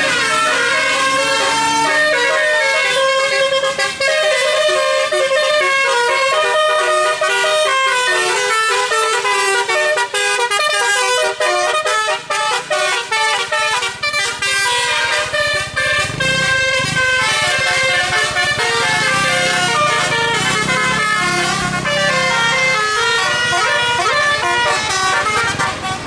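Tour bus 'telolet' musical air horn playing a tune, one note quickly after another without a pause. A low engine rumble from the passing traffic comes in partway through.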